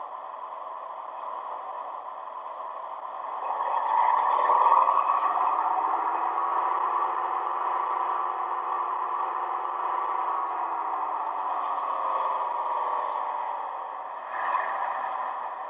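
Model-railway sound decoder playing a Class 55 Deltic diesel engine sound through its small onboard speaker. The engine note rises and swells about three seconds in, holds, then eases back near the end, with a short rush of noise near the end. The sound is thin, with little bass, which she suspects is down to the speaker.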